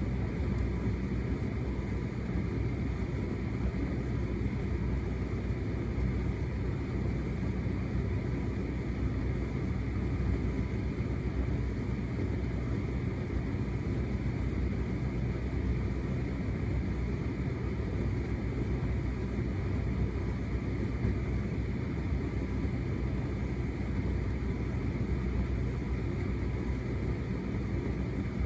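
Hotpoint SUTCD97B6PM condenser tumble dryer running a shirts cycle: a steady low rumble from its motor, fan and turning drum as the load tumbles.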